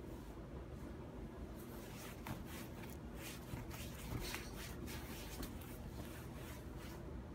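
Faint, irregular soft rustles and small clicks from a baby chewing and handling a half-peeled banana, starting about a second and a half in.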